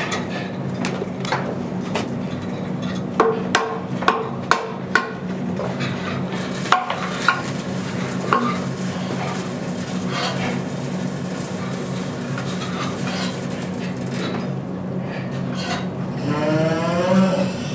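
Sharp knocks on wood: five in quick succession a few seconds in and a few more soon after, over a steady low hum. Near the end, a brief rising whine.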